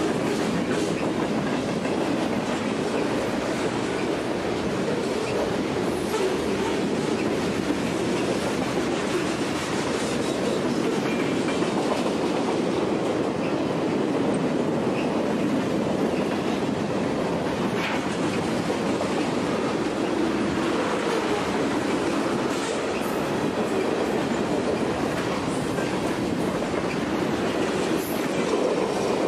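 Freight cars of a mixed train rolling past at speed: a steady rumble of steel wheels on rail, with a faint click now and then as wheels cross rail joints.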